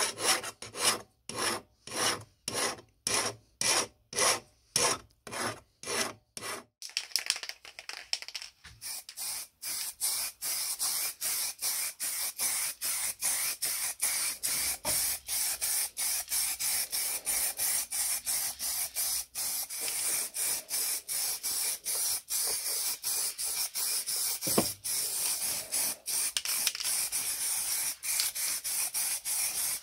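A hand file rasping back and forth on a funnel-shaped cast metal part, about two strokes a second, for the first seven seconds. Then an aerosol spray can hissing as paint is sprayed onto the parts, in long bursts with short breaks.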